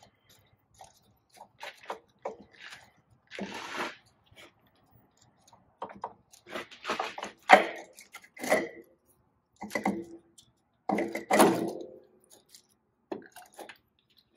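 Irregular metal knocks, clinks and scrapes as the diesel injection pump of an Allis-Chalmers 160 tractor is wiggled and worked free of its mounting and fuel lines by hand, a few of the knocks briefly ringing.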